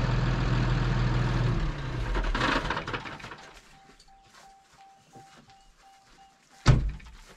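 Pickup truck engine idling, then shut off about two seconds in. A repeating door chime beeps about three times a second, and a door slams shut near the end.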